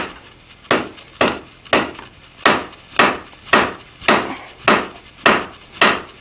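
Blacksmith's 4-pound diagonal peen hammer striking red-hot steel bar on the anvil face, about two blows a second with a short pause about two seconds in. The blows are drawing out the bar into the thinner spring section of a spring butcher tool.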